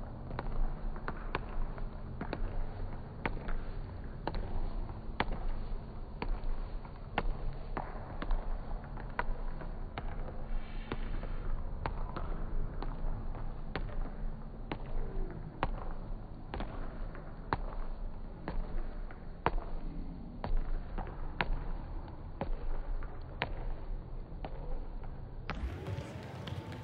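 Sharp knocks about once a second in a large indoor sports hall, over a low background rumble.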